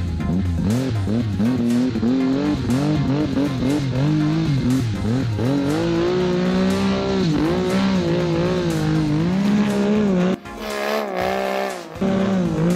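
Arctic Cat King Cat snowmobile's two-stroke engine revving up and down with the throttle as it carves through deep powder. The pitch rises and falls every second or so, and the engine drops off sharply about ten seconds in before coming back on.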